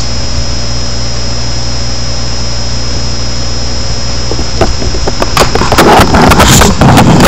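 Steady electrical hum and hiss, then from about four and a half seconds in a run of knocks and rustling as the camera is handled and brushed against a blanket.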